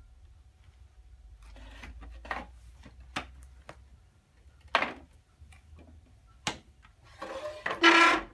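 A wooden folding director's chair being handled: several sharp wooden knocks and clacks as the frame is tilted and shifted. Near the end comes a longer, louder scrape as the chair is set back down on the concrete floor.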